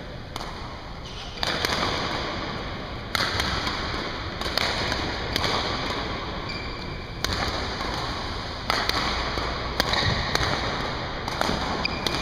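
Badminton rackets striking a shuttlecock during a fast doubles rally: sharp hits roughly every one to two seconds, each echoing in the hall. Short sneaker squeaks on the court floor come between them.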